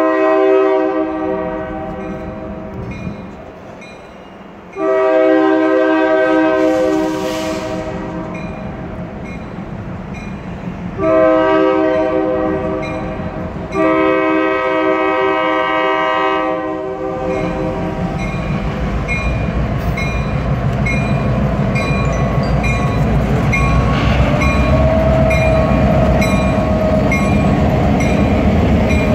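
BNSF diesel locomotive sounding its horn in the grade-crossing signal, long, long, short, long, then its engine and wheels rumbling louder as it comes up and passes close by. A railroad crossing bell dings steadily about once a second underneath.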